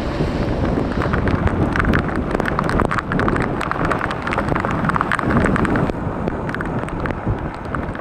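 Strong typhoon wind buffeting the microphone, with irregular sharp taps of rain striking close by from about a second in.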